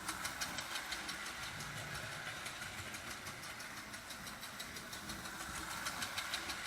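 Marx O27 toy steam locomotive running on track with its chug-chug sound unit going: a metal tab worked by the connecting rod taps a diaphragm, making a rapid, even tapping over the hum of the motor and wheels. This is the built-in chug effect, not a fault in the engine.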